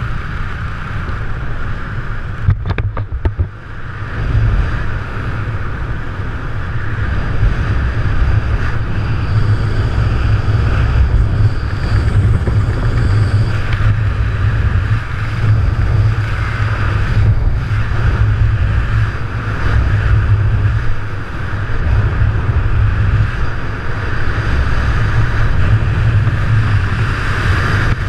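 Wind rushing over a helmet-mounted camera's microphone during parachute canopy flight: a steady low rumble and hiss, dipping briefly with a few clicks about three seconds in.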